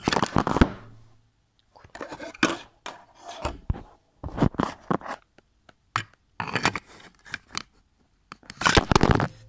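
Pokémon trading cards and hands rubbing and scraping right against the phone's microphone, in short rustling bursts with sharp clicks about once a second.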